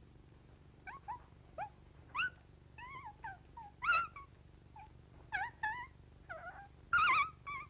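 Cartoon puppy voice: a string of short, high yips and whimpering whines, about a dozen separate calls. Some rise or fall in pitch and some waver. The loudest come about halfway through and near the end.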